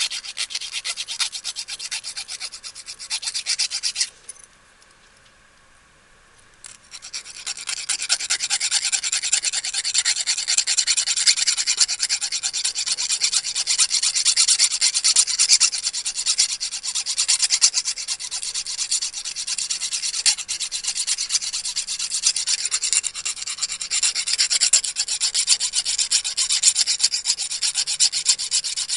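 A metal file rasping with rapid back-and-forth strokes across the tops of lock pins standing proud of a Cal-Lock deadbolt cylinder, taking them down flush with the cylinder. The filing stops for about two and a half seconds a few seconds in, then resumes.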